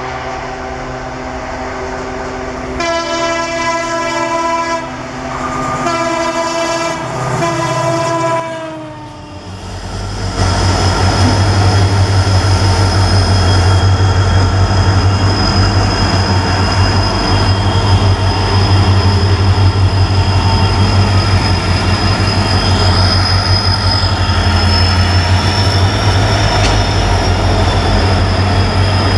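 A diesel locomotive's multi-tone air horn blowing three blasts, then the loud, steady low rumble of a diesel-hauled train running past at speed, with a thin high whine over it.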